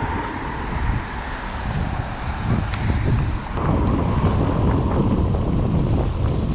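Wind buffeting the microphone while riding a bicycle, a low rumbling roar that grows louder about halfway through.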